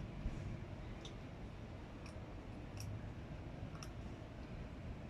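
Cat crunching dry food: faint, sharp clicks at irregular intervals, about one a second, over a low steady rumble.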